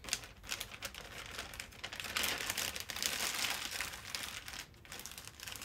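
Plastic crinkling and rustling as hands rummage through a zip-top bag of small plastic diamond-drill packets, loudest in the middle.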